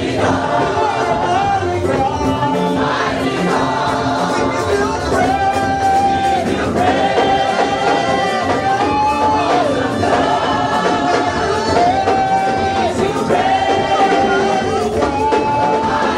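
Live gospel praise music: a congregation singing together with a live band that includes a trumpet, the melody moving in long held notes.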